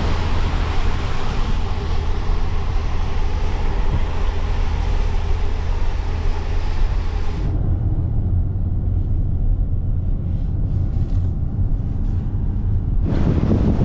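Steady rush of wind and rain on the microphone with a low rumble beneath. About seven and a half seconds in it cuts to the muffled low rumble of a car driving on a wet road, heard from inside the cabin. The wind rush cuts back in near the end.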